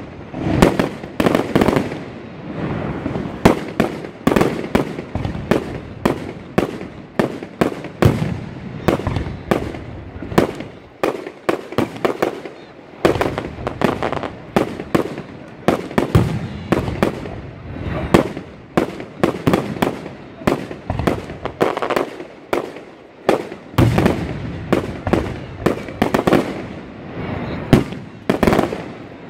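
Aerial fireworks bursting overhead: a rapid, irregular run of sharp bangs, several a second, with no let-up.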